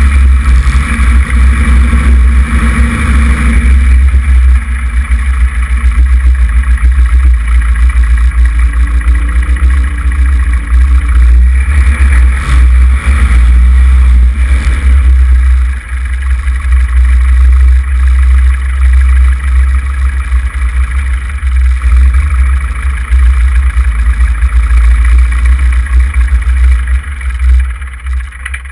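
Cessna 140's air-cooled flat-four engine and propeller running at taxi power, heard from a camera mounted outside the aircraft, with heavy low rumble from prop blast on the microphone. Near the end the sound starts to fall away as the engine is shut down.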